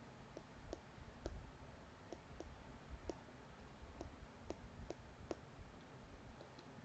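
Stylus tip tapping on a tablet's glass screen during handwriting: about a dozen light, irregularly spaced clicks over faint room hiss.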